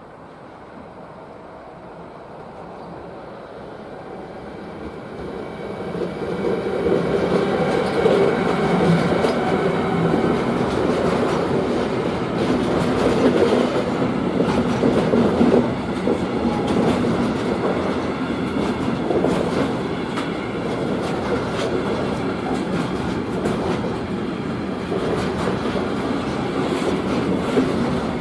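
Freight train approaching and passing: the rumble grows louder over the first several seconds, then the wagons roll by steadily with rapid wheel clicks over the rail joints.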